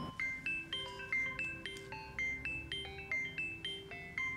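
Mobile phone ringing with a melodic ringtone: a quick run of clear notes, about four a second, over a lower line, which stops as the call is answered.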